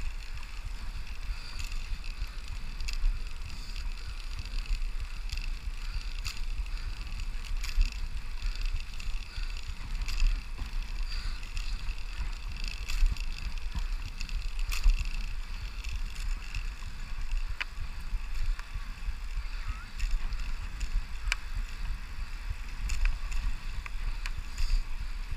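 Riding noise on a Brompton folding bicycle rolling along a paved path: a steady low wind rumble on the microphone, with scattered light clicks and rattles from the bike.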